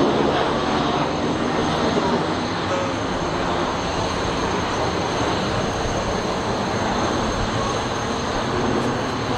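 Aircraft turbine engines running with a steady roar and a thin, steady high whine.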